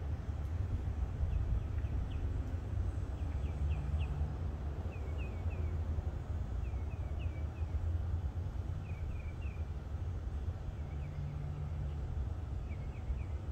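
A bird chirping in short groups of two to four quick notes, repeated every second or two, over a steady low rumble.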